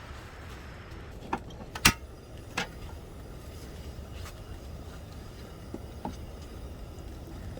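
A handful of short, sharp clicks and knocks, the loudest about two seconds in, over a steady low rumble.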